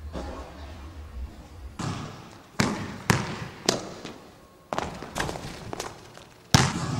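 Basketball dribbled on a hardwood gym floor: about eight echoing bounces. Near the end comes a louder bang as the shot strikes the hoop.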